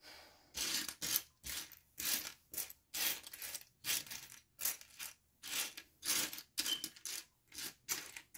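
A pile of small plastic mini building blocks clattering as a hand sweeps and stirs through it, in repeated rattling bursts about twice a second.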